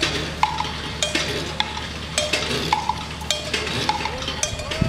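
Percussive soundtrack music: sharp struck hits about two a second, each with a short metallic ring, much like cowbell or small bells.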